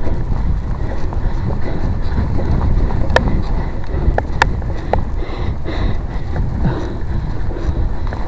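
Steady low rumbling noise buffeting the microphone, with a few sharp clicks about three to five seconds in.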